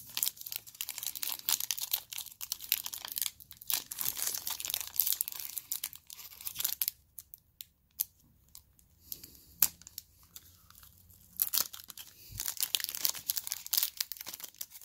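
Foil wrapper of a trading-card pack being handled, crinkled and torn open by hand: irregular crackling with a short lull in the middle, then more tearing and crinkling near the end.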